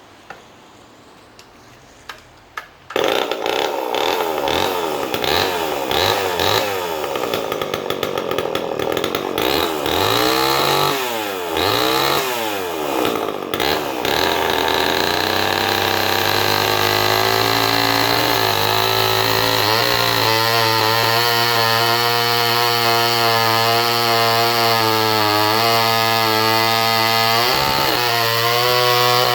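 Restored two-stroke chainsaw, over fifty years old: a few faint clicks, then the engine catches suddenly about three seconds in and is revved up and down repeatedly. From about 14 seconds it runs at a steady high pitch, held wide open as it cuts into hard Douglas fir.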